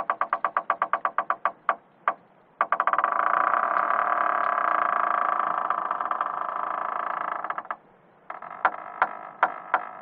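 Door hinges creaking as doors swing open, one effect after another. A fast ratcheting creak slows and stops, a click follows, then a long drawn-out creak runs for about five seconds and cuts off. Near the end comes a slower creak of separate ticks.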